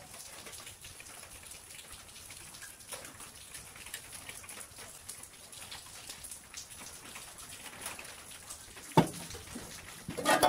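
Faint small clicks and scrapes of hand-tool work on a steel machine body, then one sharp metal knock about nine seconds in and a short run of clanks near the end as a metal cover is handled.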